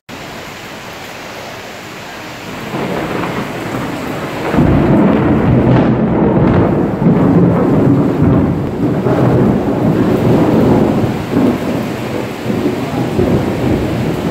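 Steady rain hiss, then thunder rumbling in about three seconds in and turning loud at about four and a half seconds, a long rolling peal that swells and eases over the falling rain.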